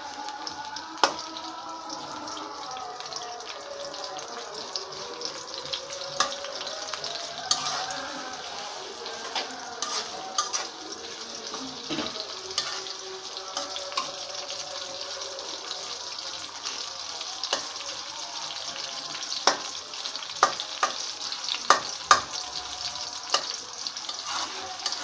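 Sliced onions sizzling steadily in hot oil in a metal karahi, with a metal spatula scraping and clicking against the pan as they are stirred; a cluster of sharp knocks from the spatula comes near the end.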